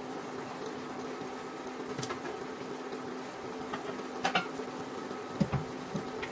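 Induction cooktop humming steadily with a pan of crabs simmering in coconut milk on it. A few soft clicks and pops come from the pan, the sharpest about four seconds in, with a couple of low knocks near the end.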